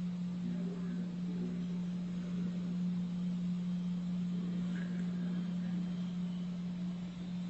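A steady low hum, one unchanging tone over faint background noise.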